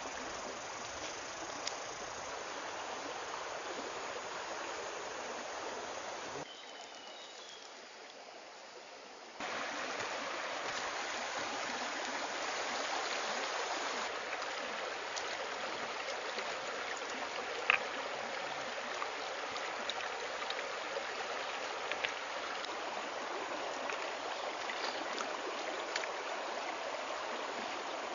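Shallow forest stream running over rocks, a steady rush of water that drops quieter for about three seconds after the first six. A few sharp clicks of stones being handled and knocked sound over it.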